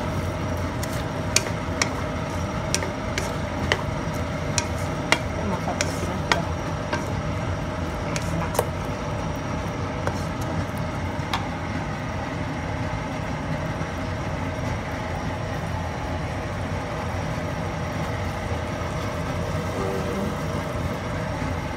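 Wooden spatula knocking and scraping against a non-stick wok while stirring a saucy tempe and anchovy sambal, a sharp click every second or so through the first half, then fewer. A steady hum runs underneath.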